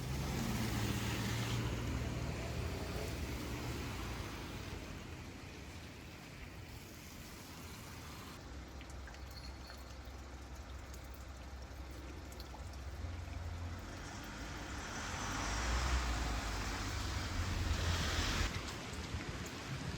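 Rain falling, with water trickling and a low rumble underneath that grows louder near the end.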